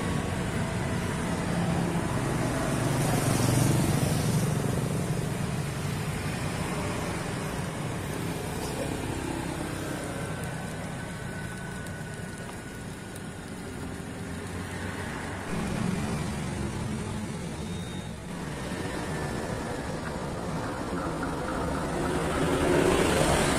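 Road traffic passing on a street, a steady rush of vehicles that swells as they go by, loudest a few seconds in, again about two-thirds through and near the end.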